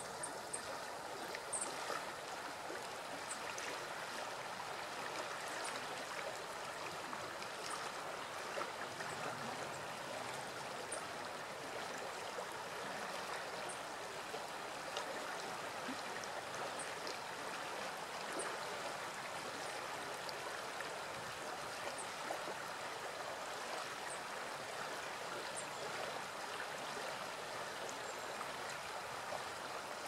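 Shallow stream flowing over stones, a steady babbling rush of water, with faint short high ticks scattered through it.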